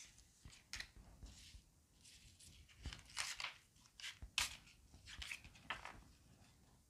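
Tarot cards being gathered off a cloth-covered table and shuffled: a series of faint, short papery swishes and slaps, about ten of them, irregularly spaced.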